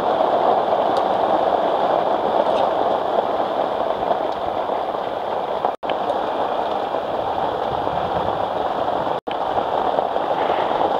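Steady heavy rain, an even hiss, cut off for an instant twice.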